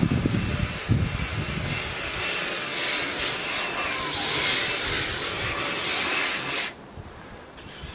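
Remote-control snowcat with twin brushless 2838 motors running, a steady hissing whir with a faint whine as its tracks churn through snow, with low thumps in the first second or so. The sound cuts off abruptly near the end.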